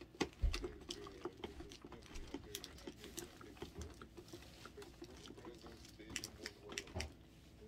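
A bar of soap rubbed against a metal box grater, with quick irregular scraping and clicking strokes and a louder knock about half a second in.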